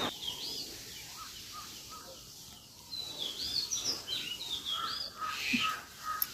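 Birds chirping: runs of short, hooked high calls repeated several times, at the very start and again from about three seconds in, with fainter lower notes in between.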